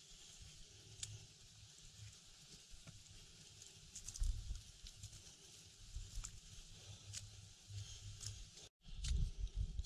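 Hikers' footsteps on a narrow dirt-and-grass mountain trail, with scattered crackling clicks from twigs and dwarf shrubs, over a steady outdoor hiss. Irregular low buffeting on the microphone, strongest about four seconds in and near the end.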